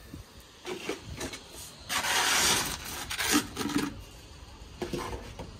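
Irregular rubbing and scraping in short bursts, the loudest about two seconds in.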